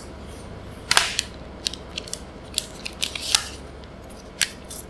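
Thin plastic protective wrap being peeled off a smartphone, crinkling and crackling in scattered sharp snaps, the loudest about a second in and again near the end, over a faint low hum.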